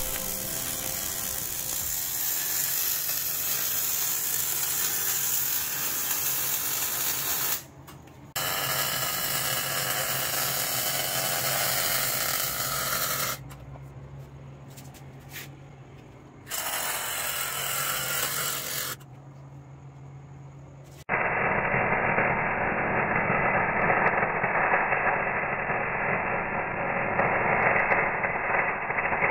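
MIG welding arc crackling steadily on steel frame rails, in runs of several seconds broken by short pauses between beads. Over the last third it goes on duller, with the highs cut off.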